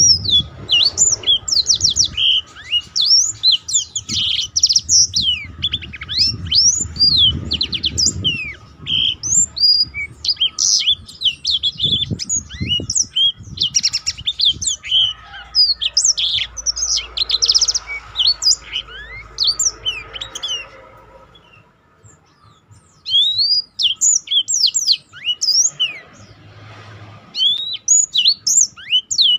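Caged blackthroat (black-throated canary) singing a fast, unbroken run of high chirps, twitters and trills, the rolling 'ngerol' song kept for training other songbirds; it breaks off for about two seconds late on, then starts again.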